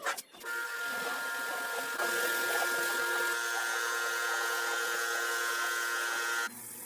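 A small electric motor, as in a power tool, running with a steady whine; it shifts once about two seconds in and cuts off suddenly near the end.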